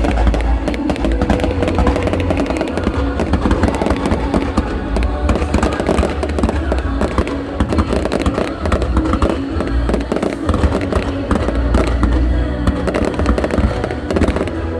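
Fireworks display going off without a break: dense, rapid bangs and crackles over a deep rumble, with music playing underneath.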